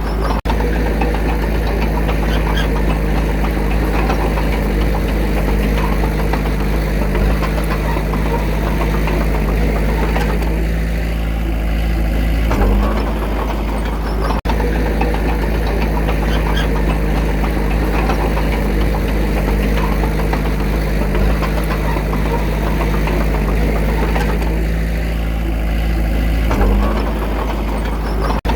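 Diesel engine of a Komatsu D21A small bulldozer running steadily as it works, with a slight knock in its note. The engine note shifts twice, about halfway through and near the end.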